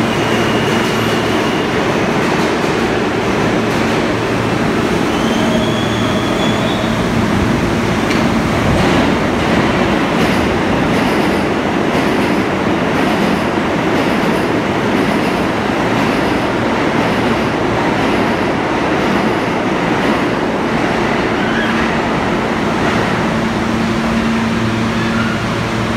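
New York City Subway train rumbling into an underground station and slowing to a stop, with brief high wheel and brake squeals in the first several seconds. It then stands at the platform with a steady low hum.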